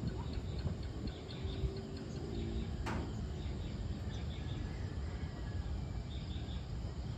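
Evening outdoor ambience: short high chirps of insects and birds repeating over a steady low rumble, with a single sharp click about three seconds in.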